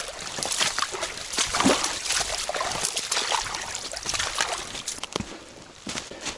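Boots splashing and sloshing step by step through a shallow, rocky stream, with water trickling. The splashing dies down near the end as the walker steps out onto dry ground.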